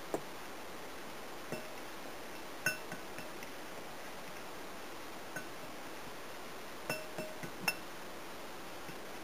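Hands rubbing flour and oil together in a mixing bowl, with a handful of light clinks at irregular intervals as the hand knocks against the bowl, each with a short ring.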